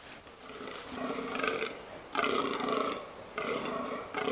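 Fallow deer buck groaning in the rut: a run of four or five rasping, belch-like groans, about one a second, the rutting call a buck makes to advertise himself to rivals and does.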